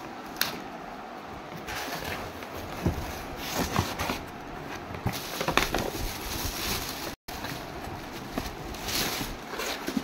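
Plastic packing sheet inside a cardboard box rustling and crinkling under hands, with scattered clicks and knocks from handling the box.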